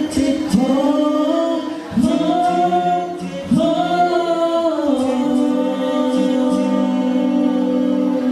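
Five-voice male nasyid group singing a cappella into microphones, in close harmony with long held chords. New chords swell in about two and three and a half seconds in, and the singing breaks off near the end.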